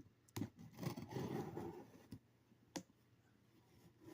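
Cardboard shipping box being cut open and handled: a sharp click, then about a second of scraping and rustling, then two more clicks.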